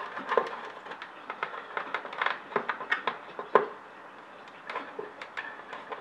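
Irregular small clicks and scrapes of a power cord and a hand tool being worked into the plastic strain-relief channels of an opened battery-charger case, with one sharper click about three and a half seconds in.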